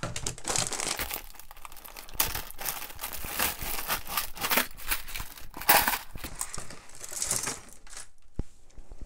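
A plastic zip-top bag crinkling and rustling as a bagful of costume jewelry is tipped out into a plastic box, with many sharp clicks and clatters of beads and metal pieces among the rustling.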